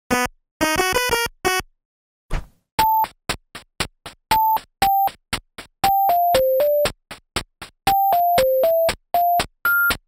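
Samsung ringtone melody played as low-bit chiptune: first a few harsh, buzzy 1-bit notes. After a short gap, from about three seconds in, the melody comes back in cleaner electronic beeps over a steady ticking beat, ending on higher repeated notes.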